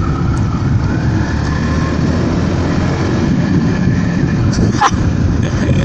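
Motorbike engine running and road noise while riding, a steady rumble. A short falling chirp comes near the end.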